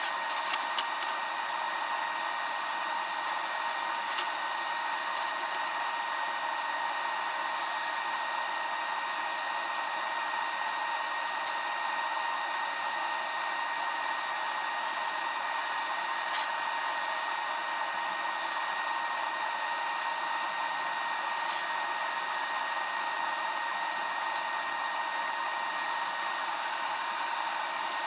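Steady whirring hum of a workshop fan, with a constant tone running through it, and a few light clicks about a second in.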